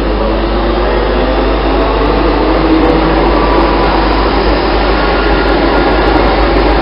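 Steady loud rushing hum of a train at a railway platform, with a faint whine that rises slightly in pitch.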